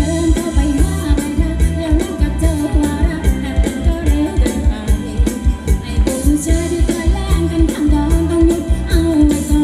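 Live Thai ramwong dance-band music with a fast, steady drum beat and a singer's voice.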